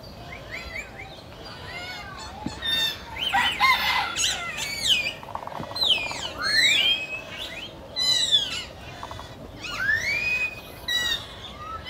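Several birds calling together: repeated arching whistled notes and quick chirps at several pitches, overlapping one another, with a short rattling trill about five and a half seconds in.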